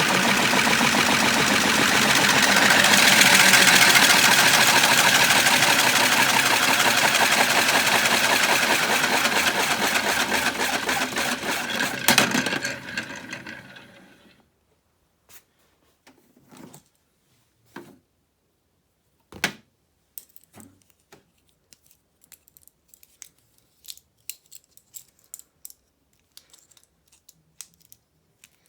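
Toy washing machine running, its small motor turning the drum with tripods tumbling inside. It stops a little past twelve seconds in and winds down, and after that there are only scattered light clicks and knocks.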